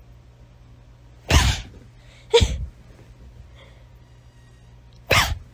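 Three short, sharp sneezes: two about a second apart, then a third a few seconds later.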